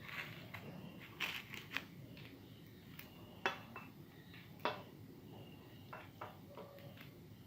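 Scattered light clicks and taps of small hard objects being handled, over a faint steady hiss; the two loudest clicks come about three and a half and four and a half seconds in.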